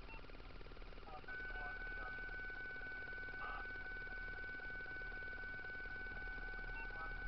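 A steady, high electronic tone starts about a second in, holds unchanged for about six seconds, then cuts off, over a low hum.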